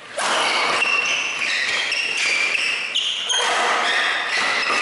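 Badminton rally in a crowded hall: court shoes squeaking in short high squeals over steady crowd noise.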